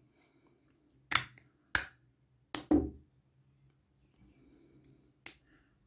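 Steel linear bearing being pushed into a 3D-printed plastic carriage by hand: a few separate sharp clicks as the metal and plastic snap and knock together, with a quick double click near the middle.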